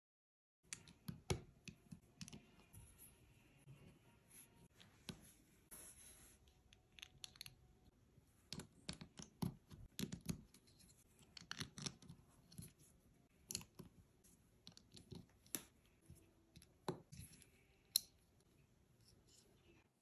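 Plastic LEGO bricks clicking and snapping together as they are pressed into place and handled, in irregular clicks; the sharpest snaps come about a second in and near the end.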